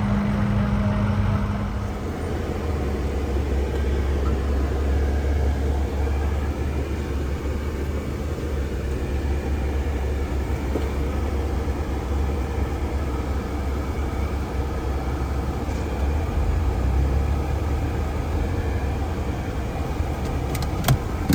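A motor vehicle's engine running steadily with a low rumble that grows fuller about two seconds in.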